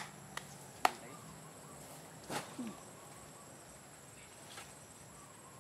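Steady high-pitched insect buzzing, with a few sharp clicks and knocks, the loudest just under a second in, and a short scuffing noise a little after two seconds.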